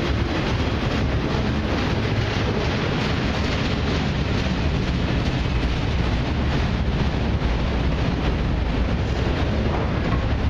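Freight train of autorack cars rolling past at steady speed: a continuous rumble and rattle of steel wheels on rail and swaying car bodies, even in level throughout.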